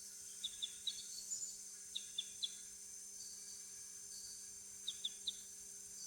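Tropical rainforest ambience: a steady high-pitched drone of insects, with short high chirps in quick groups of three, heard three times.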